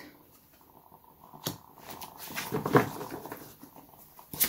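Tarot card being handled and laid down on a wooden table: a light tap about one and a half seconds in, then a louder stretch of card handling with soft scraping and knocks about two to three seconds in.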